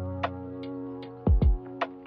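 Background music with a beat: low kick-drum thumps and sharp percussion hits over held chords.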